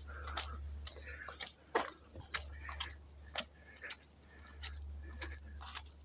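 Footsteps on a wet gravel and rock trail with light irregular clicking and clinking, about two a second, over a steady low rumble on the microphone.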